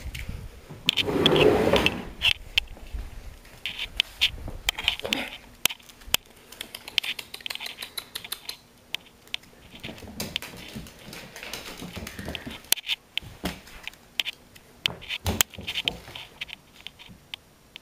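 Scattered light clicks and taps of a foil ball being batted across a hardwood floor by a cat, with paws and claws ticking on the boards. A louder rustling scrape comes about a second in.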